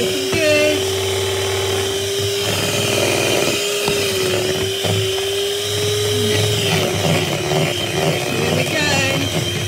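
White electric hand mixer running steadily, its beaters whisking butter icing of butter and icing sugar in a bowl. The motor's whine holds one steady pitch that wavers slightly as the load on the beaters changes.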